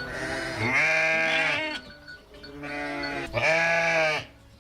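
Young sheep (lambs) bleating: two long, drawn-out bleats, one after the other with a short pause between them.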